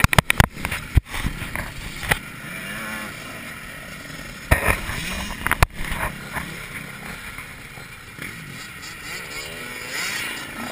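Several dirt bike engines revving, their pitch rising and falling as they ride around a dirt track. Sharp knocks and buffeting on the camera's microphone come in a quick cluster in the first second and again twice around the middle.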